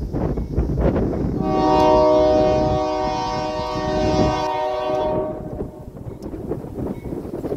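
Union Pacific locomotive horn sounding one long steady blast of about three and a half seconds as the train approaches a grade crossing. Wind rumbles on the microphone throughout.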